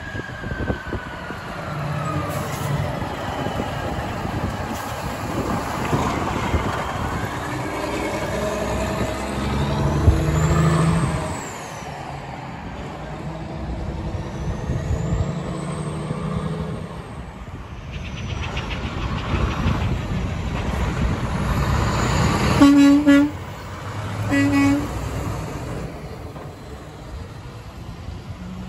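A Freightliner FLD120 semi passes with its diesel engine running. After that, a Peterbilt 567 sounds its Hadley air horn in two short, loud blasts about a second and a half apart, roughly three quarters of the way in.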